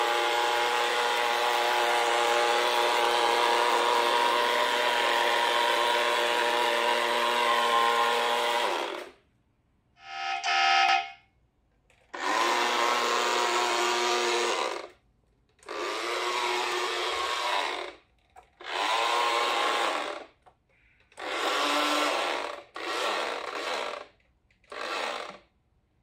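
Small electric drive motor and gears of a 1/32 radio-controlled model bus whirring as it drives. It runs steadily for about nine seconds, gives a short higher tone about ten seconds in, then whirrs in six short runs with silent stops between them.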